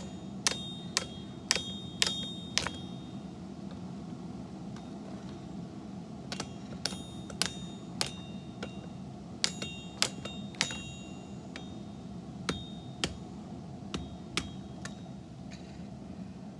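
Hand hammer striking hot laminated bandsaw-blade steel on an anvil, about two blows a second in four bursts with short pauses between, each blow ringing briefly, over a steady low hum.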